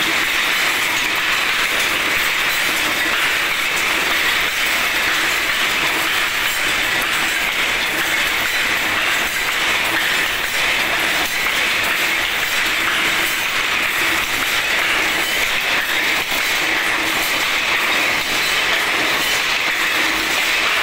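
Wire-mesh weaving machine running, weaving wire mesh: a continuous, even mechanical clatter of rapid clicks.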